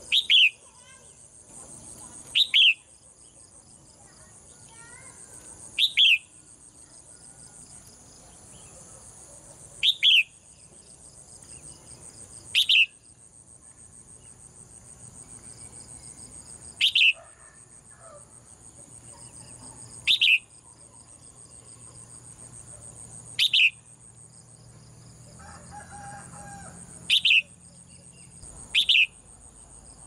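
Caged red-whiskered bulbul giving about ten sharp, short calls that drop in pitch, one every two to four seconds, over a steady high buzz of insects.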